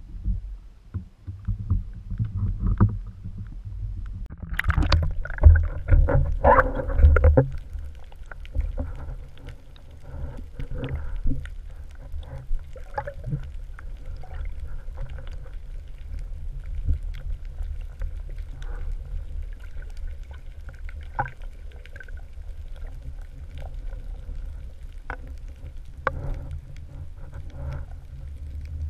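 Muffled low rumble of moving water on a camera held underwater beside a kayak in a strong current, with a cluster of knocks and clicks about five to seven seconds in.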